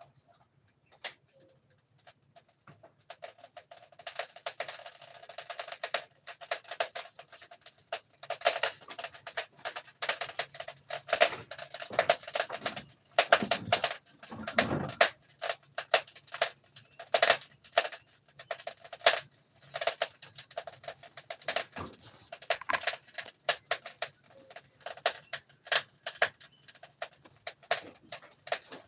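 Rapid, irregular clicking and tapping as fingers tap at a smartphone lying on a wooden table, starting about three seconds in.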